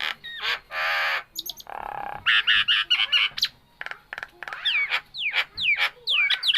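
Nias hill myna calling in a varied run: sharp clicks, a harsh squawk and a lower rasp, quick chatter, then a string of loud falling whistles.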